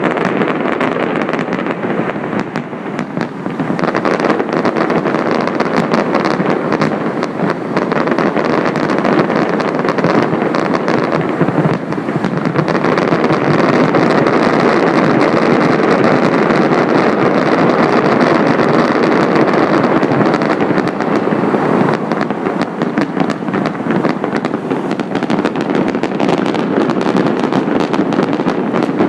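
Fireworks going off in a loud, continuous barrage of crackles and bangs, with wind buffeting the microphone.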